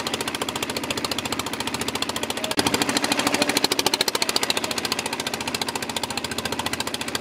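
Motor boat engine running with a rapid, even knock, growing louder about two and a half seconds in.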